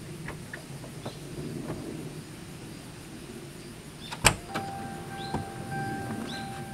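A low, steady hum, then the Toyota Hilux Surf's driver door unlatches with a sharp click about four seconds in. A steady electronic warning beep starts as the door opens and keeps sounding, with another light click partway through. Birds chirp briefly now and then.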